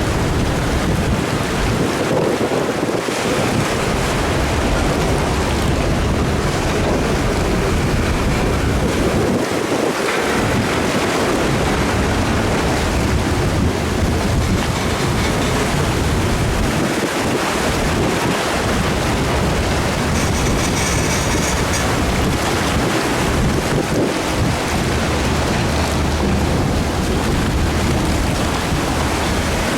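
Freight train rolling slowly through floodwater over the track, a steady wash of churning water with wind buffeting the microphone.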